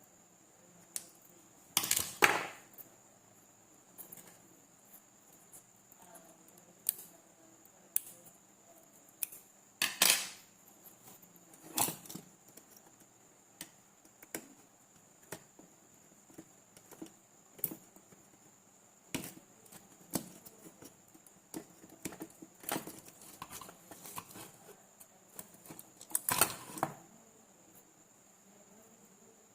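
Tools and small metal parts handled on a workbench during electronics repair: irregular clicks, taps and scrapes, with louder knocks about 2 seconds in, about 10 seconds in and near the end. A faint steady high whine runs underneath.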